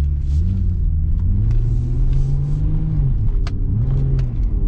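Infiniti G35's 3.5-litre V6 engine pulling the car under acceleration, heard from inside the cabin. Its pitch climbs, holds, drops about three seconds in and climbs again, running smoothly on its new spark plugs. A few faint clicks are heard near the middle.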